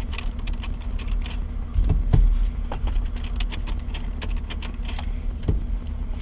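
Car key jangling and clicking in the ignition switch as it is turned to check whether the battery is alive, with a louder knock about two seconds in, over a steady low hum.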